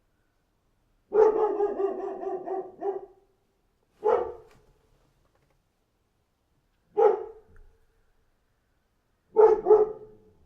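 A dog barking. First comes a quick run of barks lasting about two seconds, then two single barks about three seconds apart, and a quick double bark near the end.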